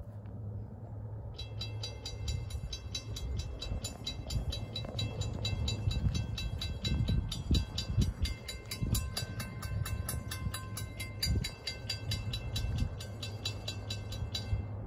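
Railroad grade-crossing warning bell ringing in rapid, even strokes. It starts abruptly and stops just as abruptly about thirteen seconds later, over a steady low rumble.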